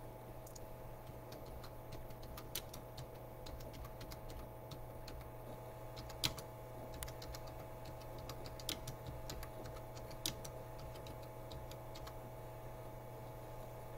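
A steady low hum with scattered, irregular small clicks; the sharpest comes about six seconds in.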